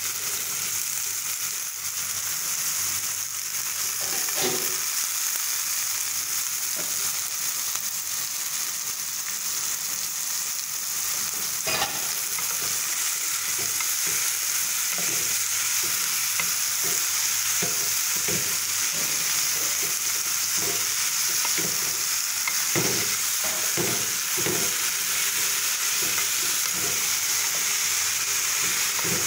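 Sliced tomato and onion, then sliced bitter melon, sizzling in oil in a stainless steel pan with a steady hiss. A wooden spatula stirs and scrapes against the pan, with a sharp knock about halfway and stirring strokes coming often in the second half.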